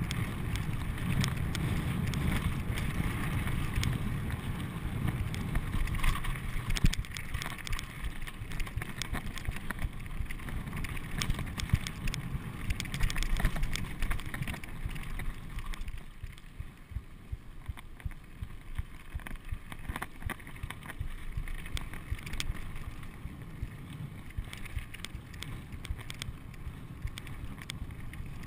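Mountain bike riding fast over rocky gravel singletrack, heard from a GoPro on the rider: wind buffeting the microphone over the rumble of tyres on loose gravel, with a constant run of small rattles and knocks from the bike over the rocks. It gets somewhat quieter a little past halfway through.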